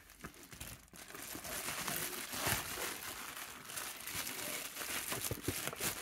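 Plastic bubble mailer crinkling and rustling as it is slit open with a knife and a hand reaches inside it.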